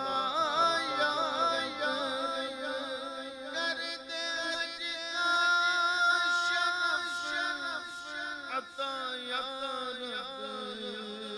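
A man singing a naat, an Urdu devotional poem, into a microphone in a slow, heavily ornamented style, with a long held note about halfway through, over a steady low drone.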